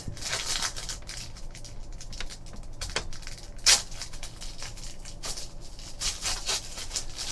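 Foil wrapper of a trading-card pack crinkling and crackling as it is torn and peeled open by hand, with sharp tearing crackles, the loudest a little past halfway.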